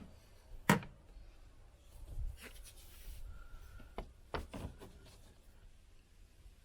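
A few sharp clicks, the loudest under a second in and two more around four seconds in, with light scraping or rubbing between them: hands working with tools and sealant.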